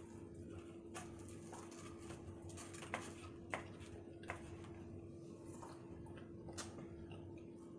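Eating sounds of chicken nuggets being chewed close to the microphone: scattered small clicks and mouth noises, over a steady faint hum.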